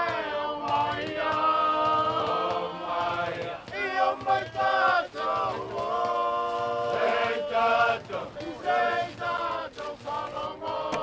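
A group of voices singing together, holding long notes that move from pitch to pitch.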